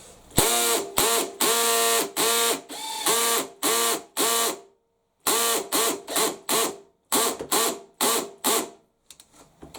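Makita XPH07 18 V cordless hammer drill in screwdriver mode at its highest torque setting, driving a 100 mm batten screw in about sixteen short bursts of motor whine with a pause near the middle. Its clutch ratchets as the screw nears full depth and its torque limit is reached.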